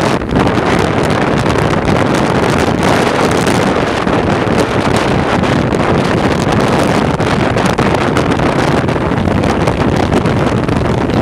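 Wind rushing over the microphone of a camera on a motorcycle moving at highway speed, with the motorcycle's running and road noise underneath. The noise is loud and steady.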